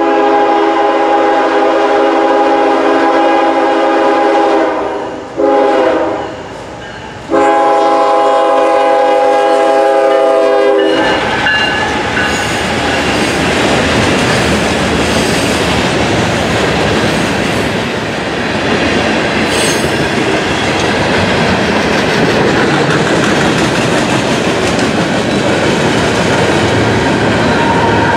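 CSX freight locomotive's multi-chime air horn sounding a long, a short and a long blast for a grade crossing. After that the freight train rolls past with a steady noise of wheels on rail.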